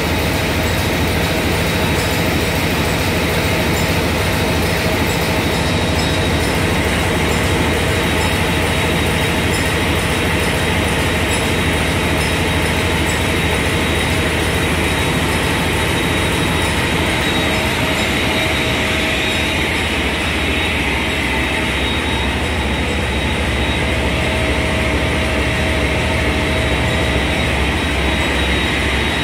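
Niigata diesel engine running steadily at constant speed: a loud, even rumble with a steady high whine.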